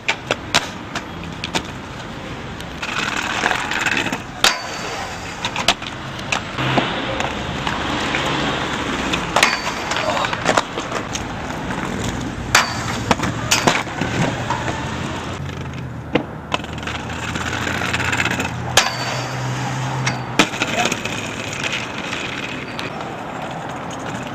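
Aggressive inline skates rolling over pavement in stretches, with many sharp clacks and knocks as skates land and strike a metal rail.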